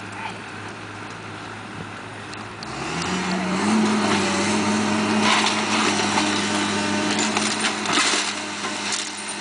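Hydraulic excavator's diesel engine running low, then revving up about three seconds in and holding at the higher speed. Brick masonry breaks apart and debris crashes and clatters down, loudest in the second half.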